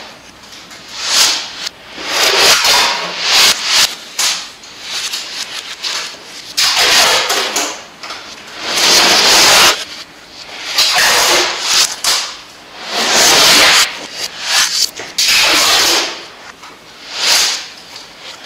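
Adhesive tape pulled off the roll again and again, each pull a noisy rip lasting half a second to a second, about every one to two seconds.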